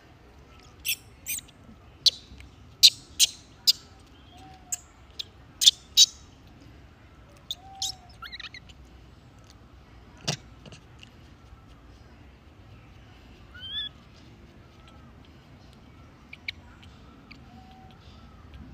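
A run of short, sharp, high-pitched animal chirps, clustered in the first six seconds, then a few rising calls and a faint, repeated lower call. One sharp knock comes about ten seconds in.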